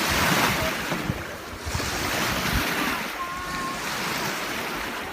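Waves washing in surges, with wind buffeting the microphone.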